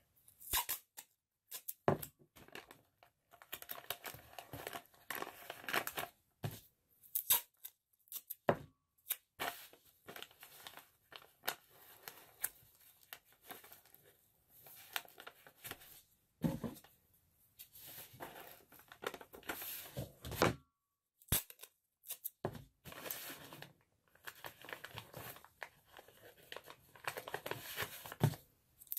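Brown paper lunch bag crinkling and rustling as it is handled and folded, with tape pulled, torn and pressed down onto the paper in short irregular bursts.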